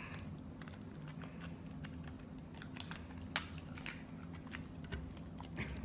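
Scissors snipping at plastic blister packaging: scattered small clicks and crinkles, with one sharper snip about three and a half seconds in.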